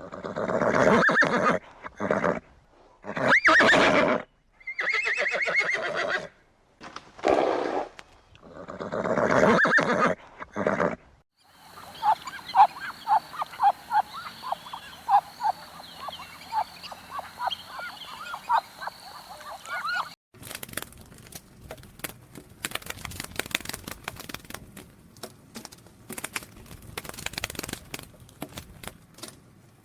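Horse calls: loud neighing and whinnying in the first part, then a long, quick, quavering whinny, followed by a run of sharp hoof knocks like clip-clopping.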